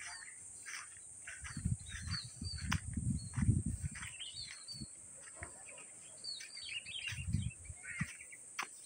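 Birds chirping in short, high calls over a steady high hiss. Soft thuds of footsteps on grass and earth come in two stretches, about two steps a second, early in the middle and again near the end.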